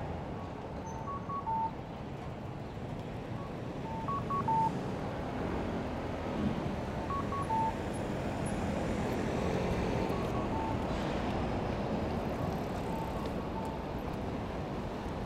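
Electronic signal beeps: a pattern of two or three quick higher tones followed by a longer lower tone, repeating about every three seconds, over steady city street and wind noise.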